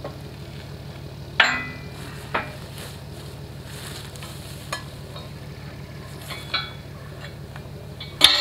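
Sharp metallic clanks ringing off a steel disc harrow as it is pried with a long lever, about five strikes, the loudest about a second and a half in and again near the end. A steady low engine hum runs underneath.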